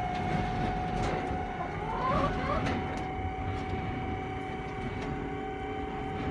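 A 12-volt linear actuator's electric motor runs with a steady whine, made of several constant tones, as it slowly drives the chicken coop door down on its slides.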